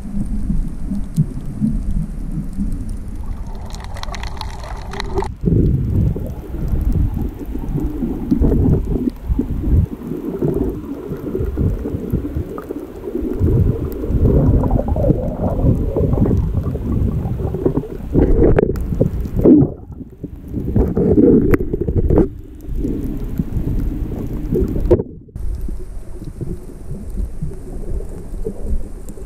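Muffled underwater rumble and sloshing of water heard through a camera's waterproof housing while snorkelling near the surface. The noise is deep, and changes abruptly several times.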